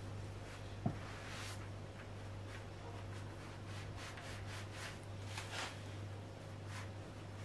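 Faint rustling and rubbing as a clothes iron is pressed and slid over the edge of a rice-filled fabric heat pad on an ironing board, with a soft knock about a second in, over a steady low hum.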